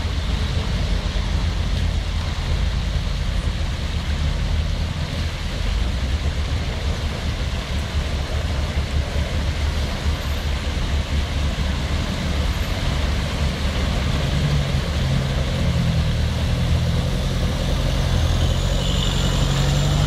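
Engine of an off-road 4x4 running as it drives through a flooded stream ford, under a steady rushing noise. The engine grows louder over the last few seconds as the truck comes out of the water and up the muddy bank.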